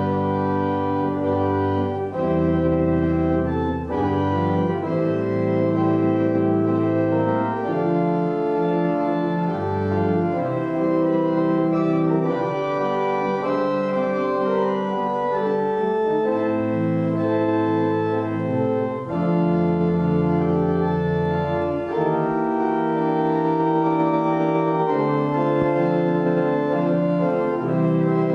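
Organ playing slow music of sustained chords that change every second or two, with deep bass notes coming in and going out.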